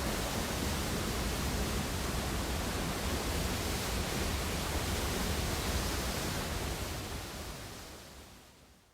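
Steady, loud rushing noise with a low rumble underneath, fading out over the last two seconds.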